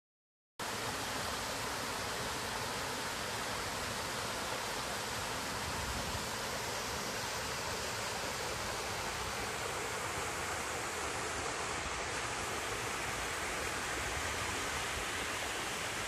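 Small waterfall cascading over rock boulders into a stream pool: a steady rush of falling water that starts abruptly about half a second in.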